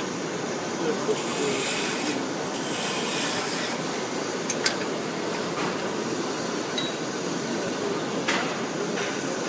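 Wood lathe running with a tool or abrasive rasping against the spinning wooden handle blank: a steady hum, with a louder hissing stretch about a second in and a few sharp clicks later.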